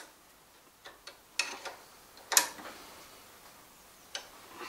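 Several light, irregular metallic clicks and knocks from hands working at the clamp of a tool post grinder mounted on a lathe, the loudest a little over two seconds in.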